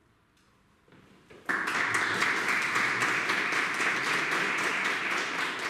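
Near silence after an accordion piece ends, then an audience breaks into applause about a second and a half in and keeps clapping steadily.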